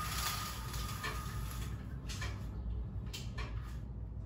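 A horizontal window blind being raised by its cord, the slats and cord rustling in a few short pulls: one at the start, another about two seconds in, and another about three seconds in.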